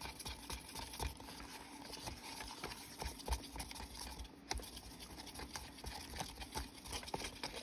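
Faint, irregular tapping and scraping of a mixing stick against a plastic cup as a batch of Resincrete is stirred.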